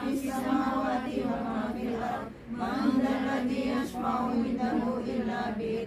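A group of women reciting Quranic verses aloud together in unison, a chanted recitation with short breath pauses about two seconds and four seconds in.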